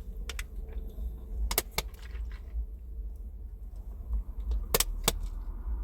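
Wet mouth clicks and lip smacks close to the microphone while eating: about five sharp ones, two near the start and two near the end. Under them runs a steady low rumble of the car cabin.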